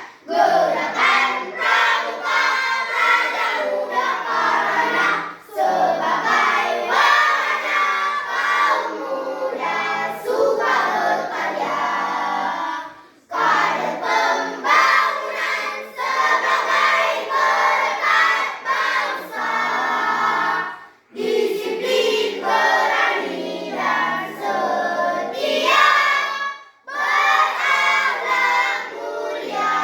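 A choir singing a song in sustained phrases, breaking off briefly between phrases.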